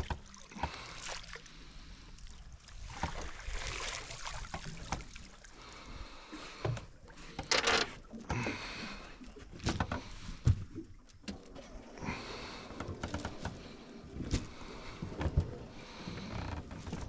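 Irregular knocks, clicks and splashy rushes aboard a small boat while freshly caught live bait is handled, with one louder splash-like rush about halfway through.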